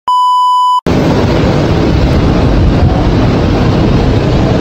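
A TV test-card beep: one steady high tone lasting under a second, switched on and off abruptly. It is followed by a loud, steady noise with a heavy low rumble.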